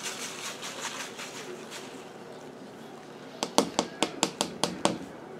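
Grated Parmesan pattering softly out of a plastic measuring cup onto spinach leaves. About three and a half seconds in comes a quick run of sharp taps as the cup is knocked and shaken to free the clumpy cheese.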